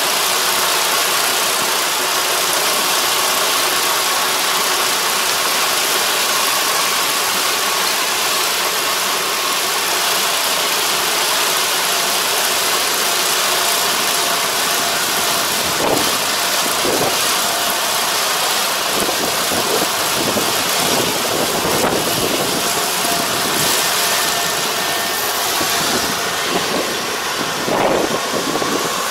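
Combine harvester running steadily while cutting rice: a constant engine hum under a broad mechanical hiss. A few short knocks and rustles come in during the second half.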